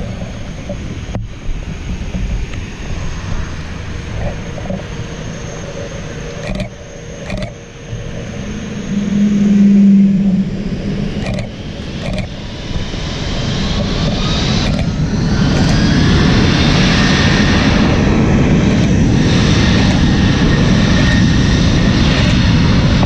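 Delta Airbus A330-300's jet engines spooling up for takeoff: a rising whine builds from about thirteen seconds in, then the engines run loud and steady at takeoff power. Earlier there is outdoor noise with a few sharp clicks and a short low hum.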